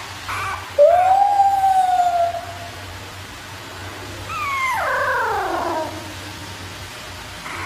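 Puppy howling: a short yelp, then a long howl that rises and slowly sags, and a couple of seconds later a second howl that slides steeply down in pitch.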